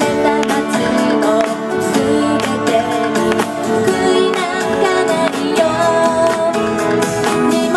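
A young woman singing live into a microphone over an amplified pop backing track with a steady beat.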